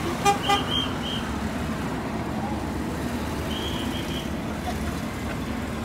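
Steady low rumble of a small tow cart's motor as it pulls an engine-off IndyCar past, over a crowd's background murmur. Two brief sharp knocks come under a second in, and short high chirps come twice.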